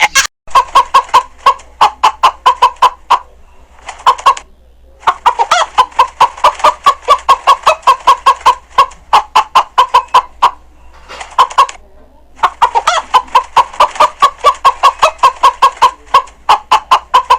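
Chicken clucking in fast runs of short, sharp clucks, about four or five a second, broken by brief pauses.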